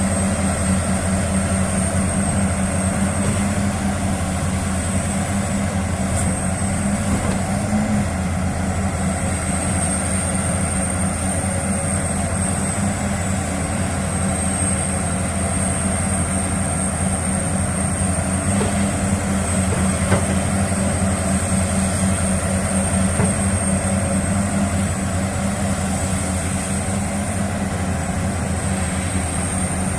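Large diesel mining machinery running steadily at an excavator loading an articulated dump truck: a constant low engine hum with a thin high whine over it and an occasional faint tick.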